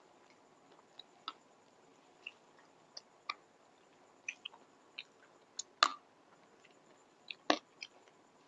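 Close-miked chewing: scattered wet mouth clicks and lip smacks, with two louder smacks about six and seven and a half seconds in.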